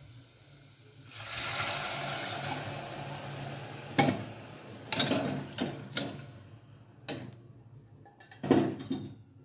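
Quail pieces and their broth poured from a steel pot into a pressure cooker of masala: a splashing pour lasting about three seconds, followed by a series of sharp metal clinks and knocks of the pot and ladle against the cooker.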